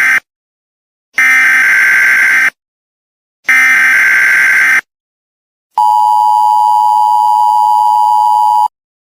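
Emergency Alert System SAME header: the end of one harsh, buzzy data burst, then two more bursts about a second apart. It is followed by the steady two-tone EAS attention signal, held for about three seconds and cut off abruptly.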